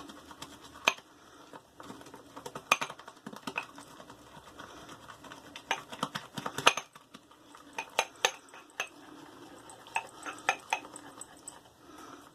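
Boar-bristle shaving brush being worked round a shaving mug to whip up lather: a soft swishing broken by frequent, irregular sharp clinks as the brush knocks against the mug.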